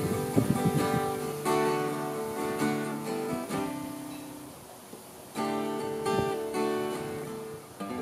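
Tanglewood acoustic guitar, freshly fitted with new strings and a bone nut and saddle, strummed in chords that ring on. About halfway through, one chord is left to fade before the strumming picks up again.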